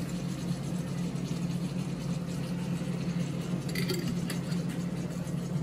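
A steady low mechanical hum, with a faint click about four seconds in.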